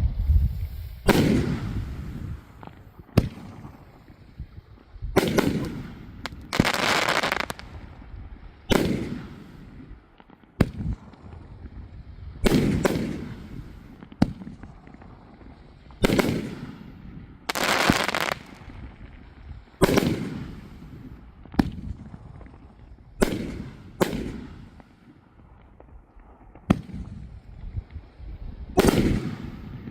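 A nine-shot 500-gram firework cake firing its large shells one after another, a second or two apart: each shot a launch thump and sharp airborne bursts, each shell breaking twice, some bursts trailing off in a crackle.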